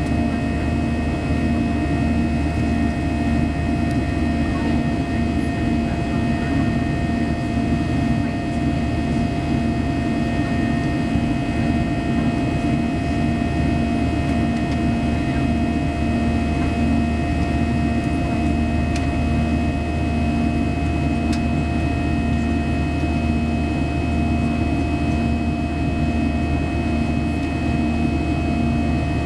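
Cabin noise of a Boeing 737-800 in flight: a steady drone of engines and rushing air, with a few steady hums running through it.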